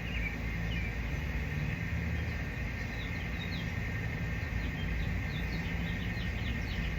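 Outdoor ambience: a steady insect buzz and a steady low hum, with a run of short falling bird chirps in the middle.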